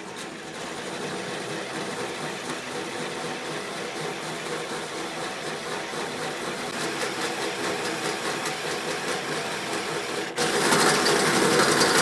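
Cordless drill running steadily as a cobalt metal-drilling bit bores a pilot hole through the metal side of a table saw cabinet. About ten seconds in it suddenly gets louder.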